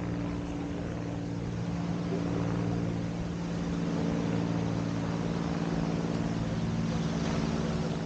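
A steady engine drone holding one constant pitch, over a broad background hiss.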